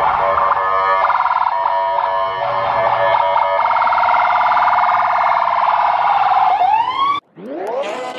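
A loud, pitched wail that warbles rapidly up and down, like an emergency siren, cutting off suddenly about seven seconds in. A rising swoosh follows as music begins.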